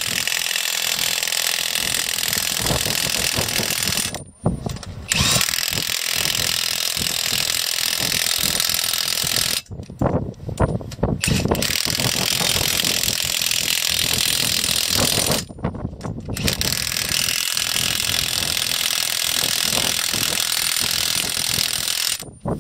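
Cordless impact wrench running M24 Hardlock nuts onto the bolts of a rail fishplate joint. It runs in four long spells of several seconds each, with short breaks between them as it moves from bolt to bolt.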